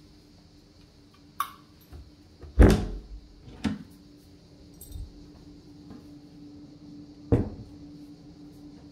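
An interior door being handled and pushed open: a few separate knocks and thuds. The loudest comes about a third of the way in, and another comes near the end. A faint steady hum sits underneath.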